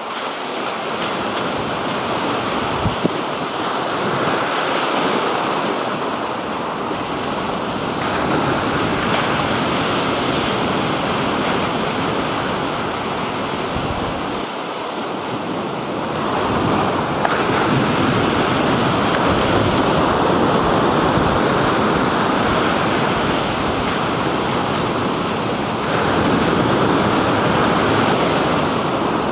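Black Sea surf: waves breaking and washing onto the shore in a steady rush that swells and eases every several seconds, with wind buffeting the microphone.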